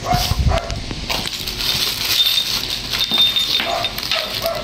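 A dog yelping several times, a pair of short yelps near the start and a few more near the end, while plastic packaging crinkles as parts are handled.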